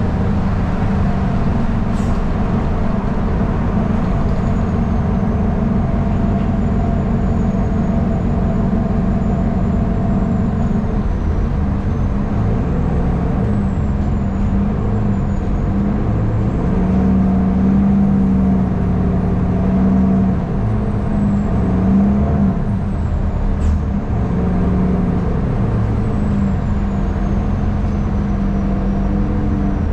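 City bus riding along, heard from inside: a steady low engine and drivetrain drone that shifts in pitch as the bus speeds up and slows, with a faint high whine wandering above it and two short clicks.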